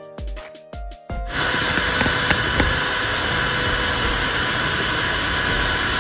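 Background music with a beat for about the first second, then a sudden cut to a wet/dry shop vacuum running with a loud, steady rushing hiss.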